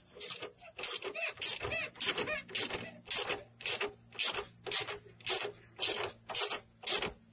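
Ratchet wrench clicking in quick strokes, about two a second, backing off the lower nut of a rear sway bar link while vice grips hold the spinning stud.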